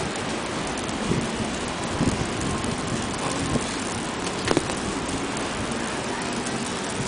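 Steady city street noise in a snowstorm: an even hiss of falling snow and wind over a low hum of traffic, with a few short ticks, the sharpest about four and a half seconds in.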